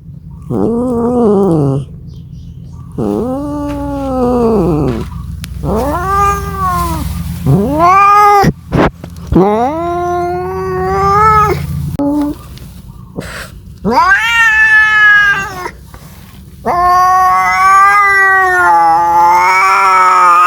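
A domestic cat caterwauling in mating calls: a series of about six drawn-out yowls, each rising then falling in pitch. The last yowl starts a few seconds before the end and is longer and wavering.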